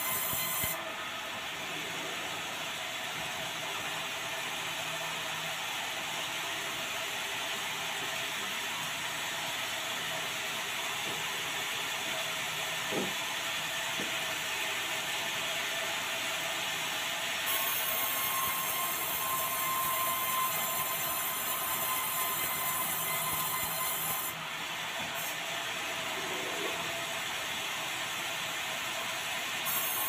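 Sawmill band saw headrig running steadily, its blade sawing dry bengkirai (yellow balau) timber into beams. The whine and rasp change in tone a few times, with a single sharp knock about halfway through.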